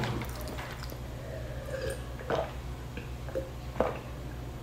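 Close-miked swallowing as a drink is taken from a glass jar: a few short gulps, spaced about a second apart in the second half, over a steady low hum.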